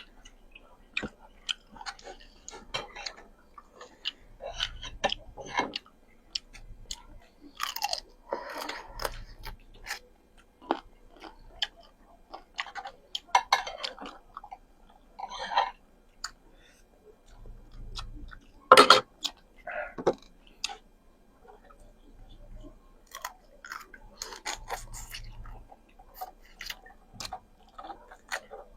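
Close-miked eating: chewing and biting of food, with many irregular wet mouth clicks and a few louder, longer sounds, the loudest about two-thirds of the way through.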